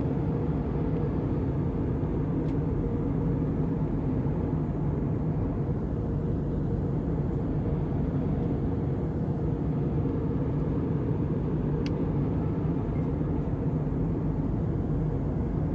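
Steady cabin noise of a jet airliner in flight: a low, even rush of engines and airflow with a steady hum. A faint click about 12 seconds in.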